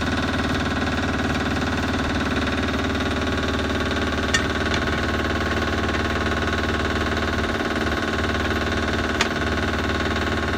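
An engine idling steadily, with two sharp metallic clinks from tire irons against the steel rim, one about four seconds in and one about nine seconds in.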